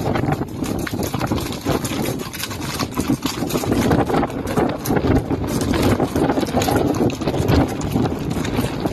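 A herd of horses galloping past on gravel, many hooves drumming in a continuous, irregular clatter over a low rumble.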